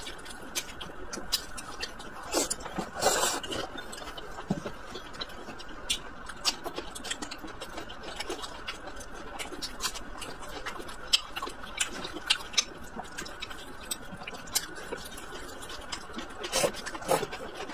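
Close-up eating sounds: a person chewing mouthfuls of stir-fried greens with meat, with frequent small wet clicks and smacks. There is a louder noisy burst about three seconds in, and a few louder bites and smacks near the end.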